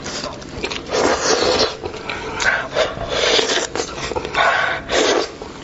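Close-miked sounds of a cooked goat head being pulled apart by gloved hands: meat and cartilage tearing and rubbing against bone in several rasping bursts, each under a second long.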